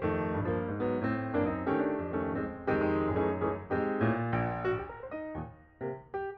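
Background piano music, a quick run of notes, dropping away briefly near the end before picking up again.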